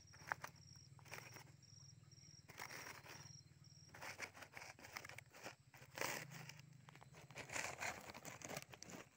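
Faint rustling and crackling of dry leaves and rope as hands thread and knot a snare rope, in short bursts several times, with small handling clicks.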